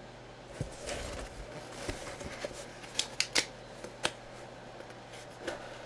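Handling noise as a cardboard box is lifted off a tabletop: a rustle followed by a run of sharp taps and clicks, the loudest few coming in quick succession about three to four seconds in.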